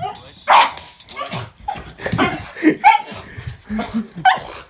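Small pug-type dog barking and yipping over and over, with short whines between the barks; the loudest bark comes about half a second in.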